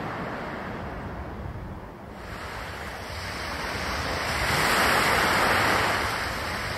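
Small waves washing onto a pebbly Lake Superior shore, with wind on the microphone. The wash builds from about two seconds in, is loudest a little past the middle, then eases.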